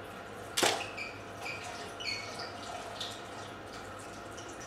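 Water splashing in a glass tank about half a second in, followed by scattered drips and small plinks, then a second splash right at the end.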